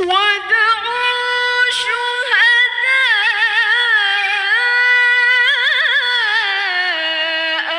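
A young woman reciting the Quran in melodic tilawah style: one long, high phrase held with quick wavering ornaments, stepping down in pitch near the end.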